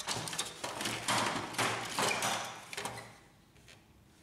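Plastic upper cover of a Canon inkjet printer being worked loose and lifted off the chassis: a run of scrapes, clicks and knocks of plastic on plastic that stops about three seconds in.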